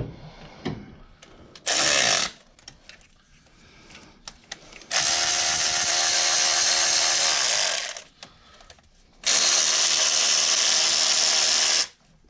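Handheld cordless power driver running nuts onto the exhaust header in three bursts: a short one about one and a half seconds in, then two long steady runs of about three seconds each. Small clicks and taps come between the runs.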